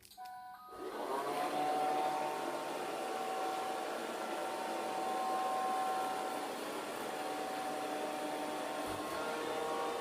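Kitfort KT-503 robot vacuum cleaner giving a short beep signal, then its suction motor spinning up about a second in and running steadily with a whine and a hiss: the robot starting a cleaning run.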